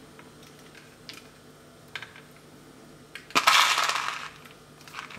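Juniper berries rattling in a small glass bowl and dropping onto raw meat: a few faint clicks, then a louder rattle about three and a half seconds in that lasts about a second.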